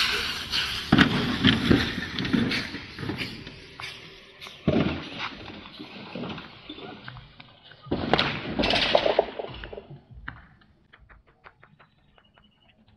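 A car running into a young street tree and over the curb: several heavy thumps and bangs amid bursts of noise, dying away into faint clicks after about ten seconds.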